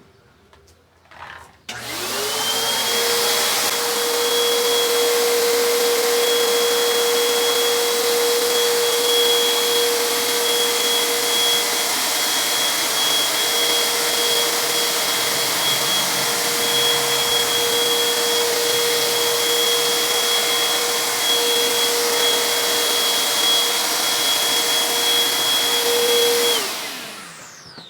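Mini electric paint-spray compressor switched on about two seconds in. Its motor spins up quickly and runs at a steady high pitch with a strong airy hiss for about 25 seconds, then is switched off and winds down with a falling whine near the end.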